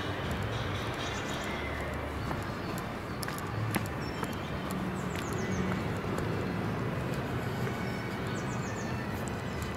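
Footsteps walking along a dirt woodland path, with small birds chirping in short falling phrases several times over a steady outdoor background hiss.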